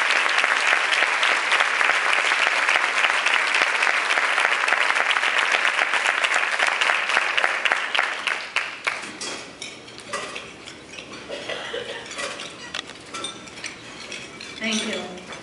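Banquet audience applauding, a dense patter of many hands clapping that dies away after about eight seconds. Scattered clinks of cutlery and dishes follow.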